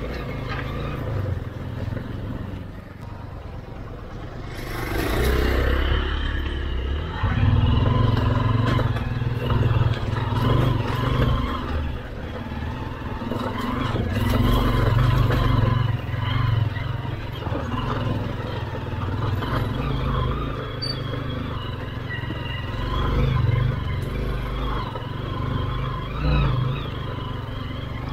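Single-cylinder motorcycle engine running under load on a rough off-road track, its revs rising and falling, with scattered knocks and rattles from the bike over the bumps. A brief rush of noise about five seconds in.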